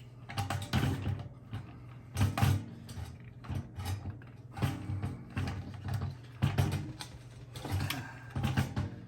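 A plastic caster wheel being worked and pressed into its socket on a thin stainless steel shop vac canister: irregular knocks, clicks and rattles in clusters.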